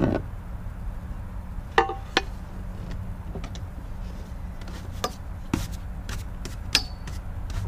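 A few scattered light clicks and taps of hardware and hand tools being handled on a boat deck, over a steady low hum.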